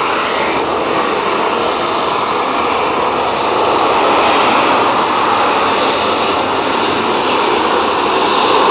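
Military jet flying low overhead, its engine giving a steady jet noise that grows louder about four seconds in and again near the end.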